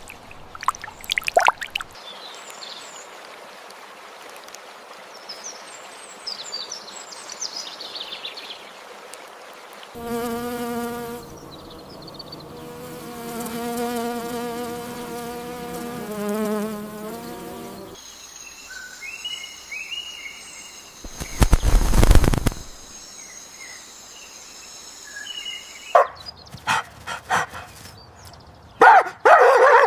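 A run of short animal sound clips, one after another: high chirps, then a steady insect buzz, then a high continuous insect trill. About two-thirds through there is a brief loud low rumble, and the clips end in a series of quick clicks.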